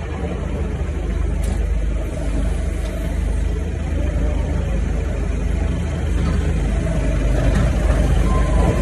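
Forklift running, heard from inside its cab: a steady low engine rumble while the hydraulic control levers are worked.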